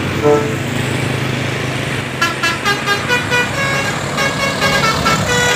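Bus engine running, then about two seconds in a Basuri multi-tone 'telolet' horn starts playing a quick tune of short, high notes that step up and down.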